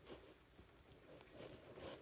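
Near silence, with a few faint, soft rustles and scuffs from hands handling wiring and connectors. The last of them, near the end, is the loudest.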